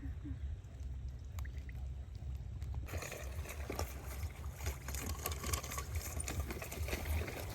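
Water trickling and splashing, busier from about three seconds in, over a steady low rumble.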